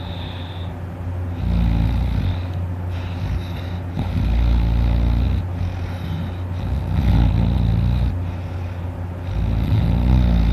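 A man snoring heavily while asleep on his back, with four deep, low snores about every two and a half seconds.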